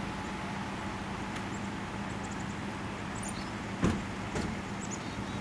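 Outdoor ambience of fast-flowing floodwater: a steady rushing noise with a low steady hum under it, faint high chirps, and a single sharp knock about four seconds in followed by a lighter one.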